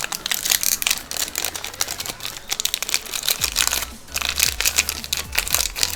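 Foil Pokémon booster pack wrapper crinkling and crackling as it is handled and pulled open, in a dense, irregular run of crackles.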